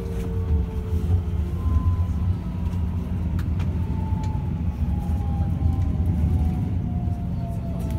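Running sound inside a Shin-Keisei N800-series train car: the Toyo Denki IGBT VVVF inverter and traction motors give a thin whine that slowly falls in pitch as the train slows, over a steady low rumble of wheels on rail, with a few faint clicks.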